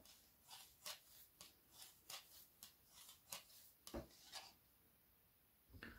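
Faint soft rubbing of yarn drawn over a knitting needle while stitches are cast on, in short brushes about twice a second that stop about four and a half seconds in.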